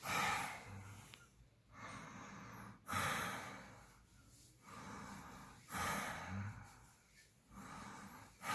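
A man breathing audibly and deeply, with a louder breath roughly every three seconds and softer ones between. It is a demonstration of breathing while lying on the side with the head tilted down, a posture he says keeps the tongue from falling back and stops the snoring.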